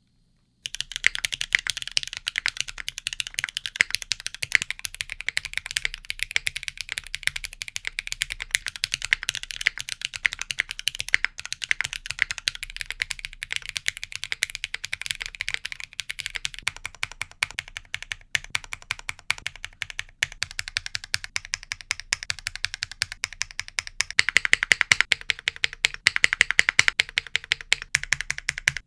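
Fast, continuous typing on a Pangea Mini gasket-mount 60% mechanical keyboard for a sound test, beginning with MX Black switches on an aluminum plate: a dense run of sharp keystroke clacks. The sound changes character about two-thirds of the way in and grows louder near the end.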